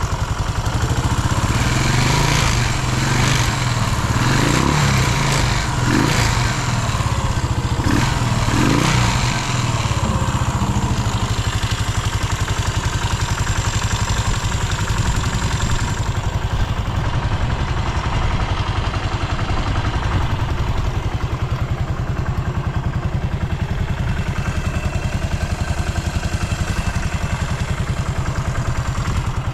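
Yamaha SR400's air-cooled single-cylinder four-stroke engine revved in several short throttle blips over roughly the first ten seconds, then idling steadily. It runs cleanly, with no abnormal noises and a quiet engine note, as the restorer judges it.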